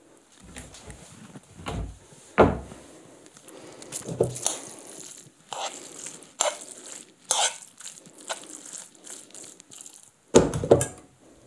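A metal teaspoon stirring grated fried beetroot in a nonstick frying pan to mix in lemon juice: soft scraping with scattered clicks and knocks against the pan, loudest as two knocks near the end.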